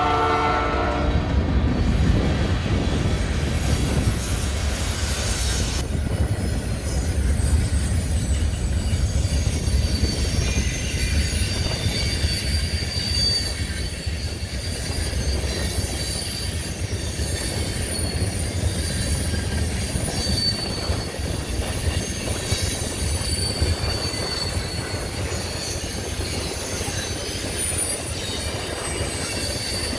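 A CN train's multi-note air horn ends about a second and a half in. The steady rumble of the train rolling past follows, with high-pitched wheel squeal coming and going over it.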